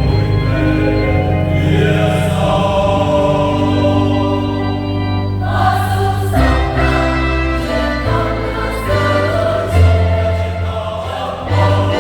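Choir singing a Vietnamese Catholic Easter hymn in held chords over a low bass line, with a new, brighter phrase entering about five and a half seconds in.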